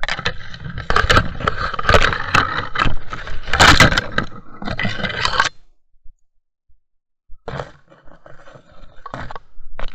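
Leaves and branches rustling and scraping right against the camera's microphone as it pushes through dense undergrowth, with twigs crackling. It breaks off for about two seconds past the middle, then resumes in scattered crackles.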